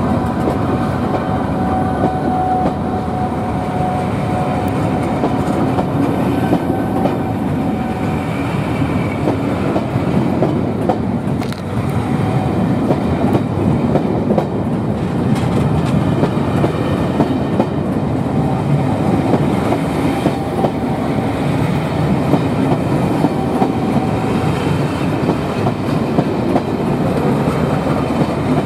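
British Rail Mark 2 passenger coaches rolling past at a station platform, the wheels clattering over rail joints in a steady, loud run of train noise.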